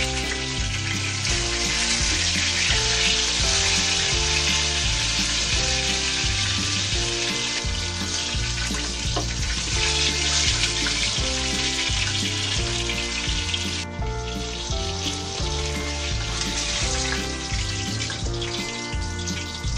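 Chicken frying in hot oil in a wok, a steady sizzle, with background music carrying a steady bass pattern. The sizzle suddenly becomes quieter about two-thirds of the way in.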